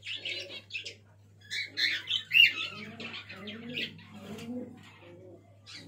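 Young fantail pigeons (squeakers) peeping in quick high squeaky series, with lower pigeon cooing underneath. The calls come in bunches, loudest from about a second and a half to three seconds in.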